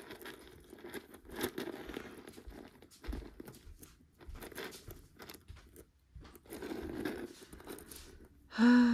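Plastic bag crinkling and rustling with small clicks as a piece of jewelry is unwrapped and handled. Near the end, a short vocal sound falling in pitch.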